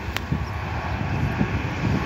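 Boeing 777-300ER's twin GE90-115B turbofan engines heard from the ground as the jet climbs out after takeoff: a low rumble growing steadily louder.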